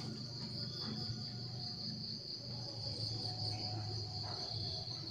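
Evening insect chorus in the forest: a steady, unbroken high-pitched chirring.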